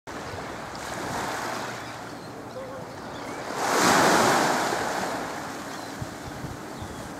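Small waves washing onto a pebble shore, with wind buffeting the microphone; one wash swells louder about four seconds in, then fades.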